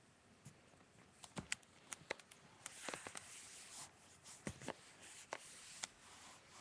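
Handling noise as a webcam is picked up and carried: a string of sharp clicks and knocks with rustling and rubbing in between.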